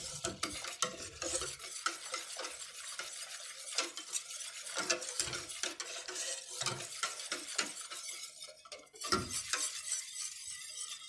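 Wire whisk beating a thin, unheated flour-and-water mixture in a stainless steel saucepan: a rapid, continuous run of clicks and scraping as the wires hit the pot's sides and bottom. This is the raw batter being mixed smooth for arabaşı dough before cooking.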